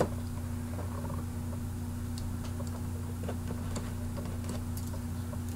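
Faint scattered ticks and scrapes of a folding knife cutting open a cardboard action-figure box, over a steady low electrical hum.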